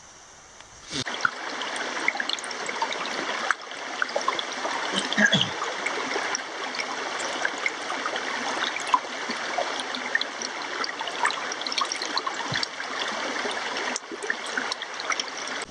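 Shallow rocky stream running over stones, a steady babble of water that starts about a second in.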